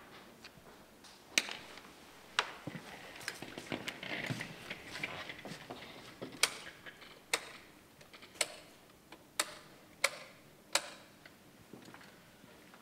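Wall light switches flicked off one at a time: a run of sharp single clicks about a second apart, with two earlier clicks and some softer rustling in between.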